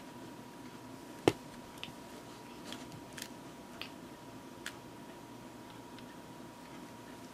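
Cat biting and chewing at close range: scattered small clicks, with one sharp click a little over a second in, over a faint steady high whine.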